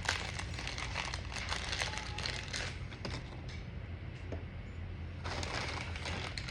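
Plastic toy wrapper crinkling and rustling as it is torn open and handled, with a quieter lull about four seconds in before the crinkling picks up again.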